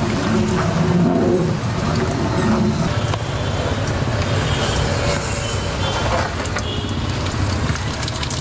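Steady street ambience: a continuous low rumble of traffic noise.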